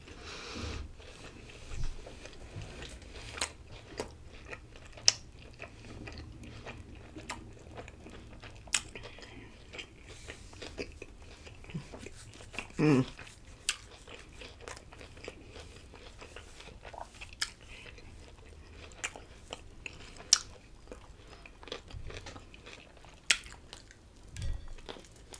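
Close-miked chewing of a chicken gyro in a soft flour tortilla with cucumber and onion: scattered sharp wet mouth clicks and smacks, with a fresh bite into the wrap near the end. About halfway there is a short hum-like sound from the throat.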